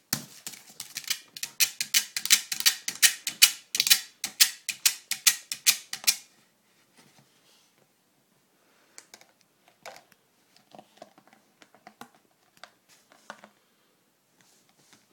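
A toy poodle puppy's teeth and paws clicking and clacking on a hard plastic frisbee: a fast, loud run of sharp clicks for about six seconds, then scattered fainter clicks after a short pause.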